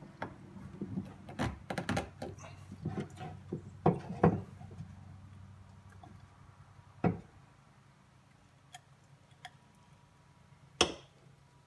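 PVC fittings and a plastic PVC ball valve being handled and knocked against each other and a plywood bench during solvent-cement assembly: a quick run of clicks and knocks over the first few seconds, then a few single knocks, the loudest near the end.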